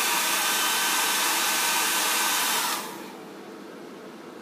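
1200-watt hair dryer running on high: a steady rush of air with a motor whine, switched off about three seconds in, its whine dropping as the fan winds down.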